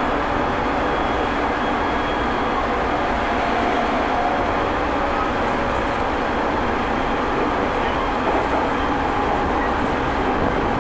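Interior running noise of a JR 209 series (2100 subseries) electric commuter train at speed, recorded inside motor car MoHa 209-2171 with MT73 traction motors. It is a steady rumble of wheels on rail with faint thin tones above it.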